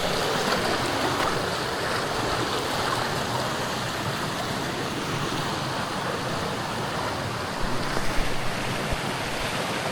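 Jungle stream running high and fast after rain, a steady rush of water. A few soft knocks come through about eight seconds in.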